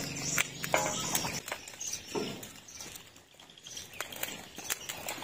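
Thin plastic nursery bags crinkling and rustling as they are opened and filled, with soft crackles of potting soil being scooped with a cut plastic bottle.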